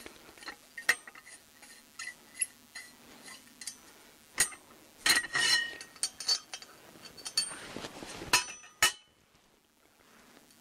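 Metal hardware on a log sleigh being handled: irregular sharp clinks and knocks, some with a short ringing tone, the loudest a little before the middle and near the end.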